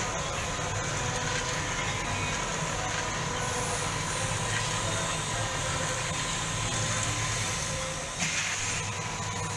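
Cocoa bean roasting machine running: a steady hiss and rumble with a thin constant whine, and a short knock about eight seconds in.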